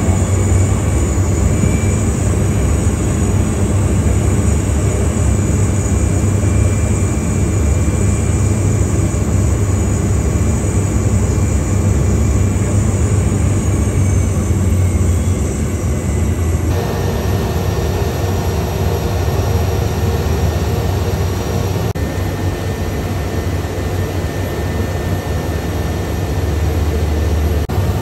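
Single-engine turboprop of a Cessna Caravan running with a steady, loud drone and a strong low hum. The sound changes abruptly partway through.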